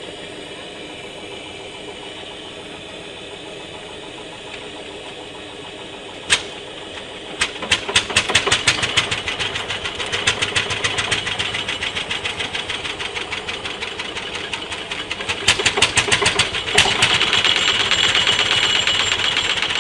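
Single-cylinder hot-bulb tractor engine, turned over by hand at its flywheel, fires once with a sharp bang about six seconds in. Then it catches and runs with an even beat of sharp exhaust pops, several a second, which gets louder near the end.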